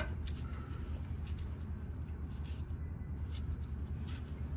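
Faint clicks and rustles of hands working a car's oxygen sensor wiring connector, over a steady low hum.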